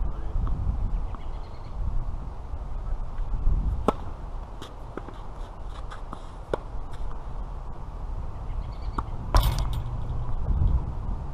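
Tennis rally: a string of sharp pops from racket strikes on the ball and ball bounces, spaced a second or so apart, the loudest about nine seconds in. Wind rumbles on the microphone underneath.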